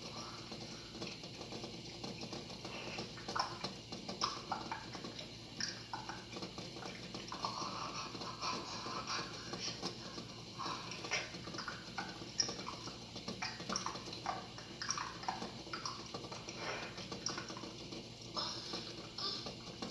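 Pot of eggs boiling on the stove, giving off irregular clicks and rattles over a low steady hiss.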